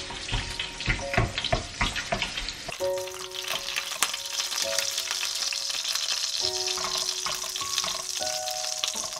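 Hot oil in a frying pan sizzling as stir-fried shrimp are strained over it in a mesh strainer, a steady high sizzle from about three seconds in. Before that come irregular knocks and clatter from handling the pan and utensils.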